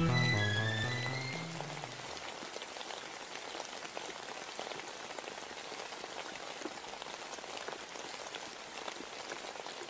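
Music fading out over the first two seconds, leaving a steady hiss full of fine crackles and ticks.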